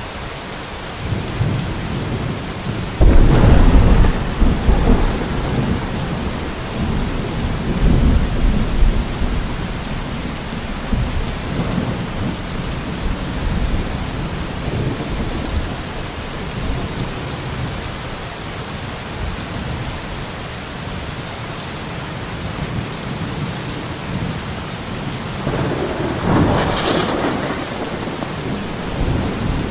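Steady rain falling through the trees, with thunder. A loud clap about three seconds in rolls on as a rumble for several seconds, and a second, shorter peal comes near the end.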